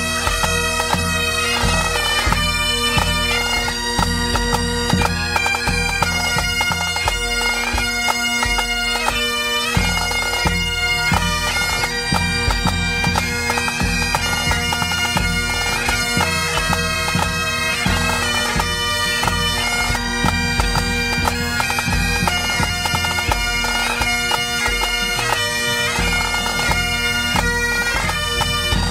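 Pipe band playing a tune: Great Highland bagpipes sound the melody over their steady drones, with snare drums and a bass drum keeping the beat.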